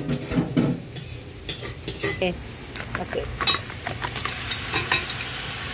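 Seasoned goat meat tipped into hot curry in a cast-iron pot and stirred with a metal spoon: scattered clicks and scrapes of spoon and meat against the pot, then a steady sizzle from about four seconds in as the meat starts to fry.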